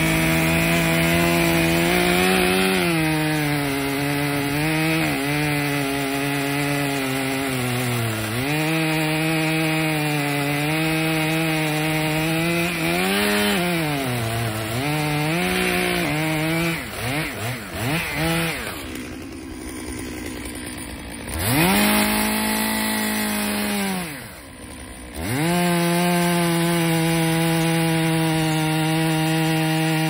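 Chainsaw cutting into the base of a standing tree, its engine held at full throttle with the pitch sagging and recovering as the chain bites. Past the middle it drops back for a few seconds, revs up once and falls off again, then settles back into a steady cut.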